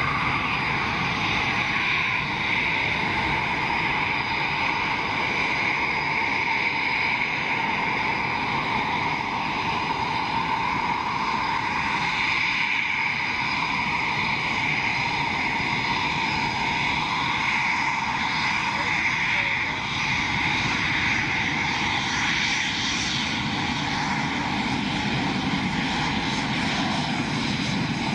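Eurofighter Typhoon jets taxiing, their EJ200 turbofan engines at low power making a steady high-pitched whine over a rumble. The rumble grows stronger near the end as one jet taxis close.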